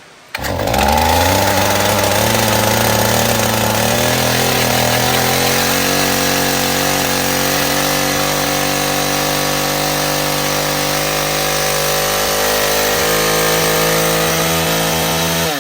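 Makita DCS 341 two-stroke chainsaw catching and running fast, loud and steady for about fifteen seconds, then shut off near the end, its pitch falling away. It is racing out of control, about to take off, because its throttle butterfly is sticking.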